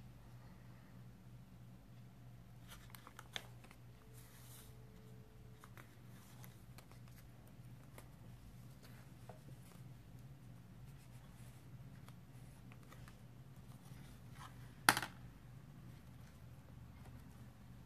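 Paper journal pages being turned and handled by hand, with soft rustles and light taps over a low steady hum. One sharp knock about fifteen seconds in.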